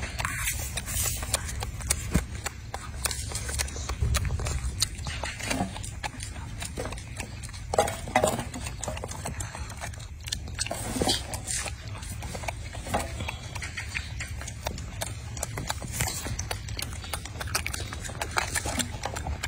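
Golden snub-nosed monkey rummaging through chopped fruit and vegetables in a stainless steel tray: irregular clicks, taps and rustles of food pieces shifting against the metal, over a low steady rumble.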